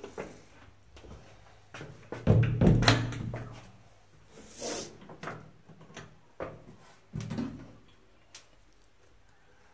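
A series of hard clunks and knocks from handling the toilet's fittings, loudest in a cluster about two to three seconds in, with a short hiss near the middle and a few more clunks later.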